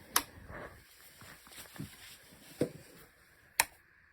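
A few sharp clicks and light knocks from handling and fitting parts of an Atrix VACBP10 backpack vacuum cleaner, the loudest click near the end. No motor runs: the vacuum is not working.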